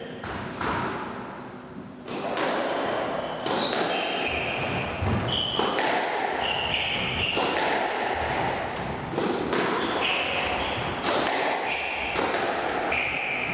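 Squash rally: the ball cracking off rackets and thudding against the court walls in a quick, irregular series, with rubber-soled shoes squeaking on the wooden floor. The rally starts about two seconds in, after a quieter pause.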